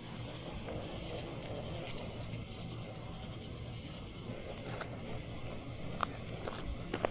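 Insects chirring in a steady high chorus over a faint low hum, with a few faint clicks near the end.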